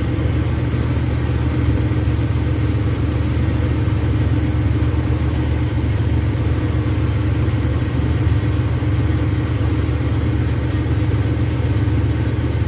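A steady, low mechanical hum that runs evenly, like an engine idling.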